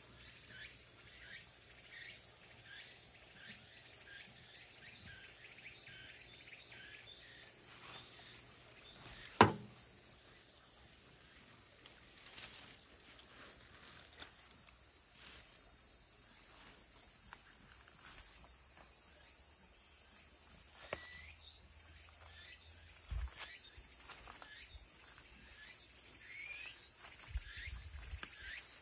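Outdoor ambience with insects chirping. A chirp repeats about twice a second and fades out after about eight seconds. A single sharp knock about nine seconds in is the loudest sound.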